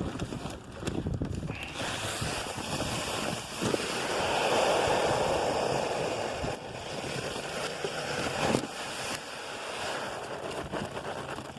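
Dry seed-and-grain chicken feed pouring out with a rushing hiss that swells in the middle and eases off near the end.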